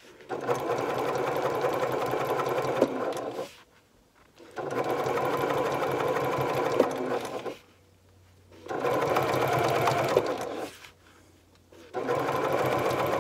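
Electric sewing machine stitching a folded cork strap in four steady runs of a few seconds each, stopping briefly three times in between. The machine is halted with the needle left down while the strap is folded for the next stretch.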